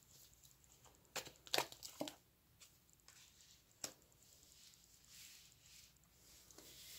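Tarot cards being drawn from the deck and laid down on the table: a few faint card flicks and taps between one and two seconds in, and one more about four seconds in.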